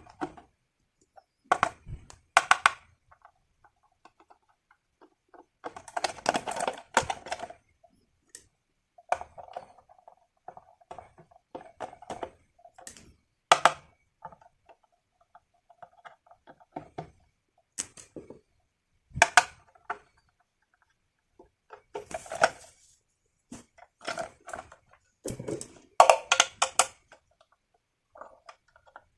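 Plastic toys and packaging being handled: scattered clicks, rattles and knocks in short clusters with pauses between them.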